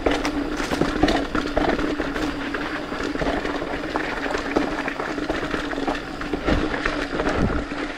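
Polygon Siskiu T8 full-suspension mountain bike rolling downhill on a rough dirt trail: its 29-inch Maxxis Dissector tyres running over dirt, roots and rocks, with frequent short knocks and rattles from the bike, under a steady hum.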